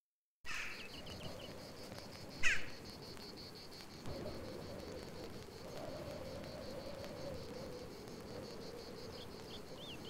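Insects chirring steadily in a high, evenly pulsing band, over a lower buzzing drone that wavers in pitch. Short sweeping bird chirps come about half a second in, about two and a half seconds in (the loudest sound) and again near the end.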